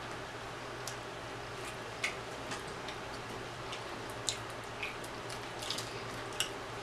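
Faint, scattered small wet clicks and ticks from handling and eating a rotisserie chicken, fingers picking at the skin and mouth sounds, over a steady low hum.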